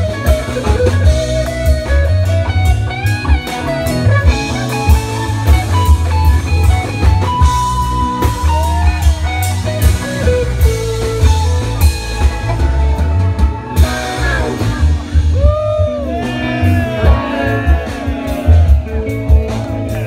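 Live rock band playing: electric guitar lead with bending notes over bass guitar, drum kit and keyboard, with a steady beat. The guitar bends stand out more from about two-thirds of the way in.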